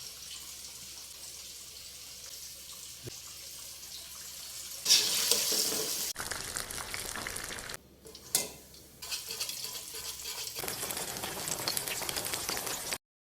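Chicken pieces frying in hot oil: a steady crackling sizzle that turns much louder about five seconds in, broken by abrupt cuts, with a sharp click and a brief lull a little past the middle.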